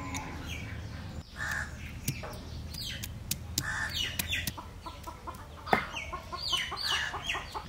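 Chickens clucking in short repeated calls, mixed with sharp knocks of a stone pestle pounding garlic cloves on a flat grinding stone; the loudest knock comes near the end.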